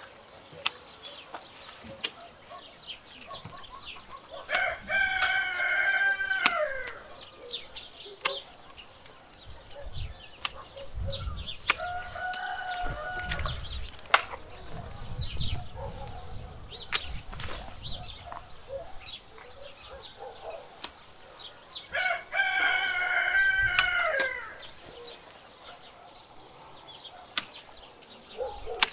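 A rooster crowing twice, about five seconds in and again near twenty-two seconds, each crow about two seconds long and dropping in pitch at the end, with a shorter call in between. Scattered sharp clicks come from the pruning work in the tree.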